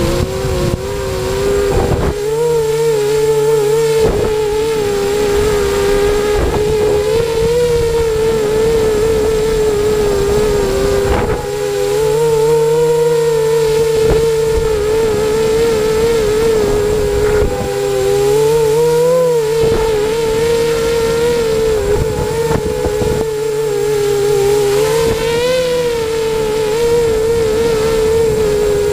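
Eachine 250 racing quadcopter's brushless motors and propellers whining in flight, a steady buzzing drone that wavers slightly in pitch with the throttle, heard from the camera on the frame. Now and then wind rushes over the microphone.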